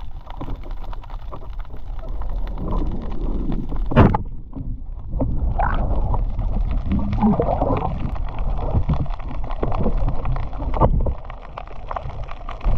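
Water sloshing and gurgling around a camera in the sea, with one sharp knock about four seconds in.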